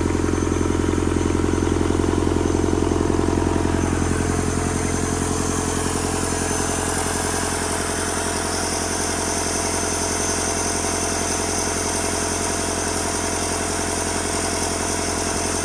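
Rebuilt Doosan D34P four-cylinder diesel engine running steadily on its test after rebuild, easing off slightly about four seconds in and then holding an even speed.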